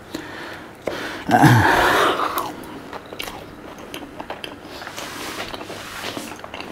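A person chewing fried food close to the microphone, with soft wet clicks and crackles. About a second and a half in there is one louder, breathy burst lasting about a second.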